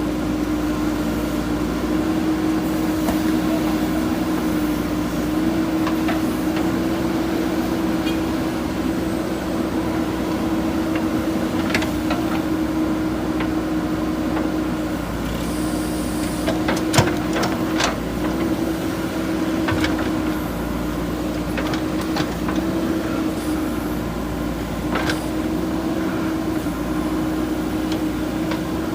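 Backhoe loader's diesel engine running at a steady speed, with several sharp knocks over it, the loudest about 17 seconds in.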